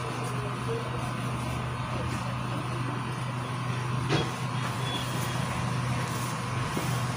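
Steady low mechanical hum, like a running motor or engine, with a single brief click about four seconds in.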